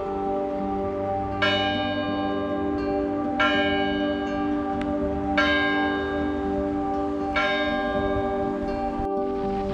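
Orthodox church bells ringing from a bell tower. A bell is struck four times, about every two seconds, over the long steady hum of bells still ringing.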